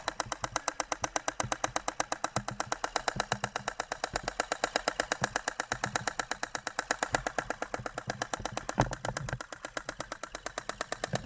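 Airsoft electric gun (AEG) cycling on full auto without stopping, a rapid, even rattle of about eleven shots a second. The replica is stuck firing, a fault that is usually cured by disconnecting the battery.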